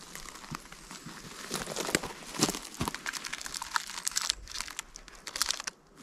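Close, irregular crinkling and crackling from movement on dry forest litter of twigs and pine needles and from handling a trail camera strapped to a pine trunk, with a brief lull near the end.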